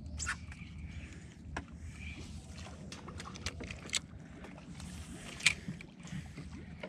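Small fishing boat on calm water: a low steady hum with scattered light knocks and clicks from gear and hull. The sharpest knock comes about five and a half seconds in.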